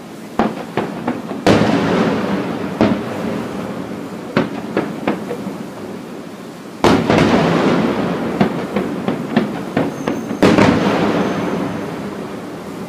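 Aerial firework shells bursting, a string of sharp bangs with three heavy booms about a second and a half, seven and ten and a half seconds in, each trailing off in a long echoing roll.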